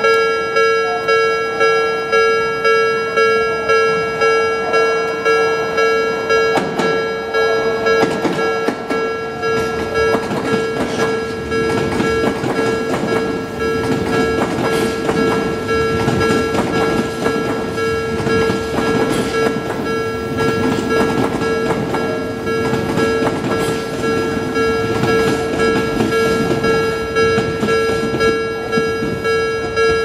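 Japanese level-crossing alarm ringing with an even, repeating electronic clang, about one and a half strikes a second. A train rattles over the crossing through the middle of it, its wheel and running noise swelling and then fading.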